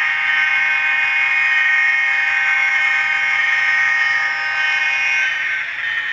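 Model diesel locomotive's MRC sound-decoder horn sounding one long, steady blast through the locomotive's tiny speaker, thin and buzzy with no low end, stopping shortly before the end.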